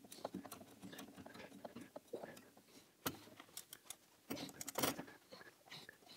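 Faint, irregular clicks and metal taps of a hand tool and fingers working at the bolts and wires of a golf cart's master solenoid. There is one sharp click about three seconds in and a cluster of clicks a little before five seconds.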